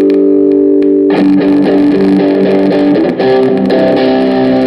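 Electric guitar played through a Behringer GMX212 solid-state analog modeling combo amp: a held chord rings, then about a second in a fresh chord is strummed and a run of notes is picked.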